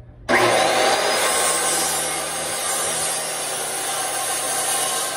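Corded circular saw cutting through wooden floorboards, starting abruptly about a third of a second in and then running steadily through the wood.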